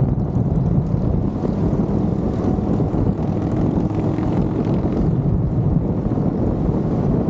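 Wind buffeting the microphone over a steady low rumble of road noise from a moving vehicle.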